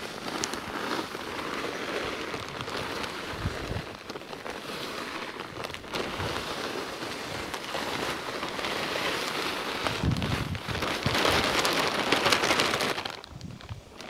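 Finely screened topsoil pouring out of a plastic bag onto bare soil: a steady, gritty hiss, loudest shortly before it stops near the end.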